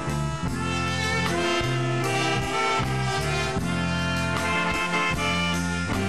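Dance band playing an instrumental interlude of a Thai popular song: a saxophone section and brass carry the melody over a bass line and drums keeping a steady beat.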